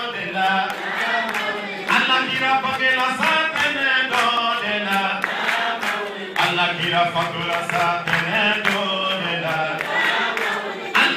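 A Sufi congregation chanting together in many voices, a sung devotional line that rises and falls in phrases.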